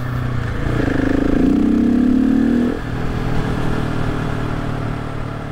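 Supermoto motorcycle engine idling, revved up once for about two seconds starting about a second in, then settling back to idle. It is being checked for a faint whistling, scraping noise, somewhere between a whistle and a scrape like a car's turbo. The noise is heard on both supermotos and is taken to be normal.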